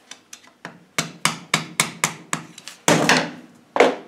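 Hammer tapping a screwdriver against a stuck circlip on a gearbox mainshaft, driving it out of its groove. After a couple of light clicks come about ten sharp, ringing metal strikes, roughly four a second. The last two strikes are the hardest.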